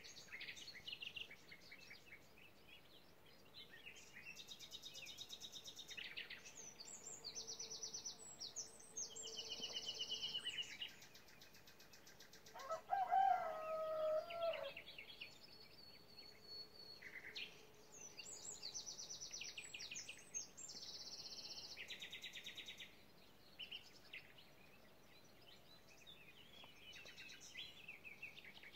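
Songbirds singing in rapid high trills and twittering phrases, one burst after another, with a short gap between each. About halfway through, a lower, louder call lasting around two seconds stands out over the song.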